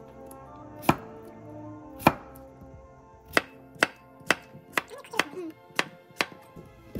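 Kitchen knife slicing a cucumber into rounds on a wooden cutting board, each cut ending in a sharp knock of the blade on the board. Two slow cuts come first, then the cuts quicken to about two a second.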